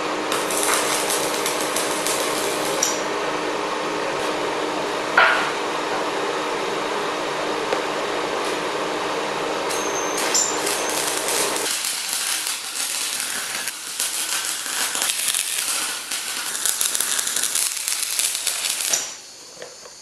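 Stick welder's arc crackling steadily as a rod burns on heavy steel, over a steady hum that stops about halfway through. The crackle cuts off suddenly shortly before the end.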